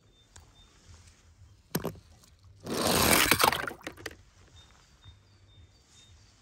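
A sharp click, then a splash of water lasting about a second as a small toy car drops into a plastic tub of water.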